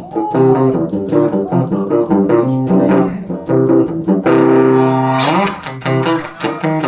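Van Zandt Telecaster electric guitar played solo through a Roland JC-120 amp: a quick run of picked notes and chord tones, with a note held about four seconds in, then a sliding rise in pitch.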